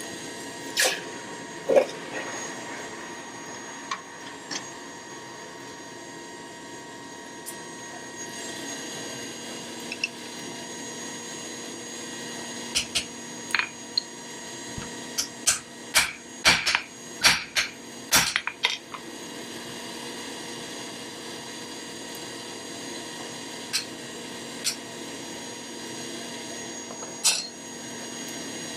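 A motor hums steadily throughout. Over it come sharp metallic knocks and clinks, scattered at first, then a quick irregular run of about a dozen between about 13 and 19 seconds in, typical of metal being struck or handled in tongs at a forge.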